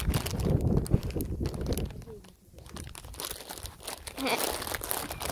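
Crackling, rustling handling noise with scattered clicks and knocks, loudest and with a low rumble in the first two seconds, fainter after that.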